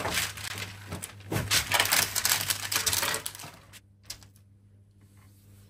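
Baking paper crackling and rustling as it is spread and smoothed on a baking tray, loud for the first three seconds or so, then giving way to a few faint handling sounds.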